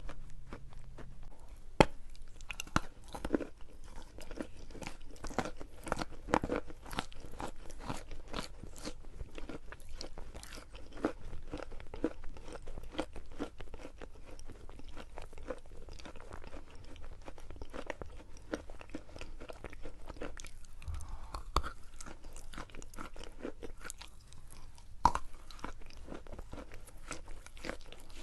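A person crunching and chewing chalk: a dense run of small crisp crunches, with a couple of louder cracks about two seconds in and again near twenty-five seconds.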